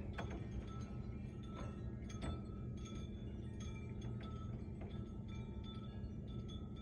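Wind chimes clinking and ringing at irregular moments as gusts shake them, several different pitches, over a steady low rumble.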